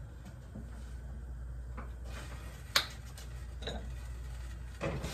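A few scattered clicks and knocks of kitchen utensils and cookware, one sharp knock near the middle and another near the end, over a steady low hum.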